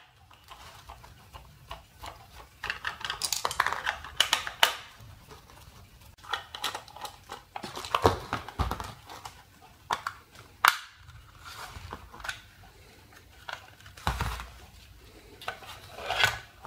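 Plastic case of a parking-sensor display unit being unscrewed and opened with a screwdriver: irregular clicks, scrapes and rattles of the tool and the plastic parts. There is one sharp click a little past the middle and a dull knock near the end.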